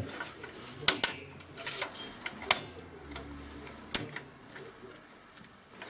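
Intel stock CPU cooler's plastic push-pins being pressed into the motherboard, giving sharp clicks as they snap home: two close together about a second in, then single ones partway through and later, with lighter handling clicks between.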